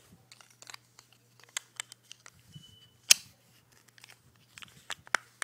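Scattered clicks and light knocks of a Tokyo Marui Glock 17 airsoft pistol's parts being handled and fitted together by hand, while the inner barrel is put back into the slide. The sharpest click comes about three seconds in, and another near the end.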